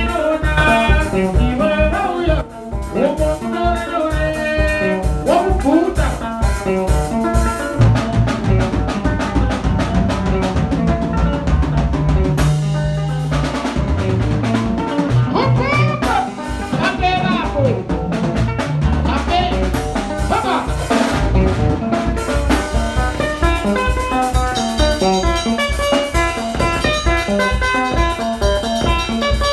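A small live band playing together: electric guitar and bass guitar over a drum kit keeping a steady beat, with some bending guitar notes in the middle.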